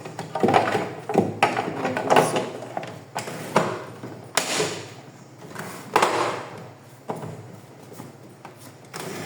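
Plastic side cover of an HP LaserJet M1132 printer being handled and pressed onto the casing: a series of irregular plastic knocks, clicks and scrapes.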